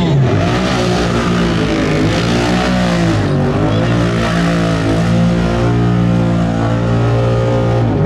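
An ATV engine revving hard as the quad churns and bogs down in a deep mud hole. It is held at high revs throughout, its pitch dipping briefly and climbing back several times.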